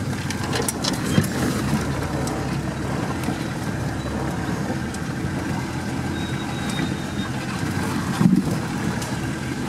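Off-road vehicle's engine running steadily at low speed, heard from inside the cab. A few knocks from the vehicle jolting over the rough track stand out, the loudest about a second in and near the end.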